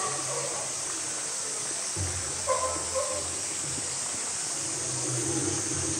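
Outdoor zoo background: a steady high hiss and a low rumble, with two short pitched calls about two and a half and three seconds in.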